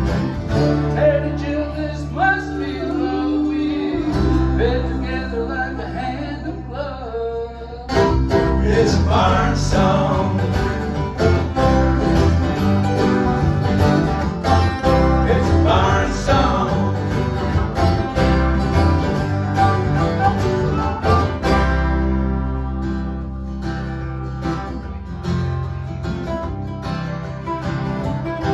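Live acoustic band playing an instrumental passage: harmonica leads with sliding notes over strummed acoustic guitars, mandolin and bass. The band drops back for a few seconds, then comes back in fuller about eight seconds in.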